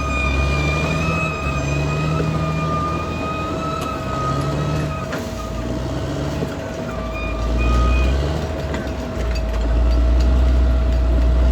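Caterpillar D6R XL crawler bulldozer's diesel engine running under load, with a steady whine over a low rumble that swells louder twice in the second half as the dozer works.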